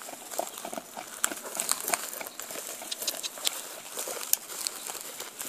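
Hoofbeats of a trotting Percheron–Mustang cross filly on dry, grassy ground: irregular soft thuds and clicks.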